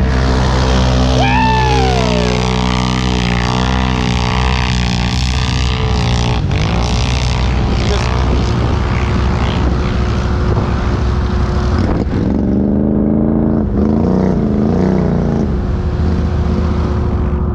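ATV engine running under load, its pitch wavering up and down as the throttle is worked, most clearly in the last few seconds.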